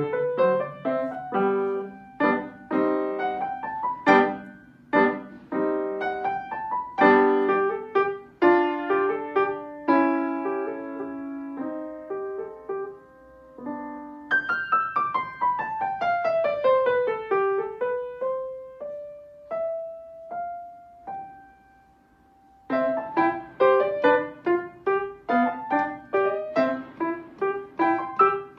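Solo upright piano played with both hands: chords and quick runs, with a long descending run about halfway through. Then a few slow, spaced single notes and a brief pause, before dense playing resumes about three-quarters of the way in.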